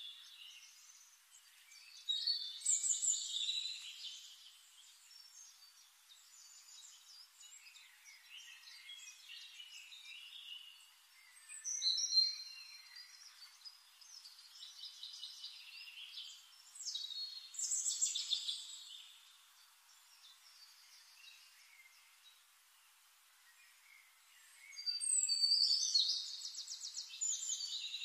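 Forest birds singing: several separate songs a few seconds long, with quieter gaps between them. A fast trilling song near the end is the loudest.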